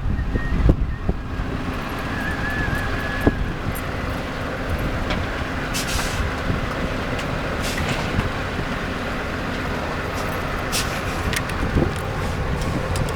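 Heavy diesel paving machinery running steadily, with a few short hisses and a brief thin whistle-like tone about two seconds in.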